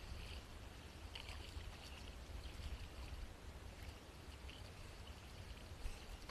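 Inflatable kayak being paddled: faint paddle splashes and drips of water, over a steady low rumble.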